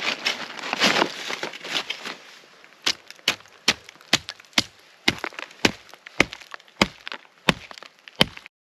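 Wood being chopped: a couple of seconds of crackling and snapping, then a steady run of sharp strikes about every half second, ending abruptly.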